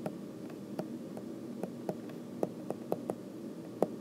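Stylus tapping and clicking against a tablet screen while handwriting: about a dozen light, irregular taps over a faint steady background hum.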